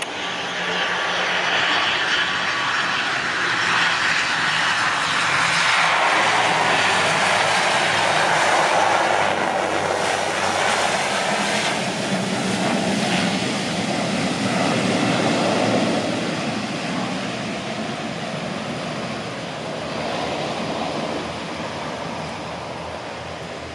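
ATR 72-500 twin-turboprop on its landing roll, its two Pratt & Whitney PW127 engines and propellers running loud. The sound swells as the aircraft rolls past, with a falling whine a few seconds in, and fades over the last several seconds as it moves away down the runway.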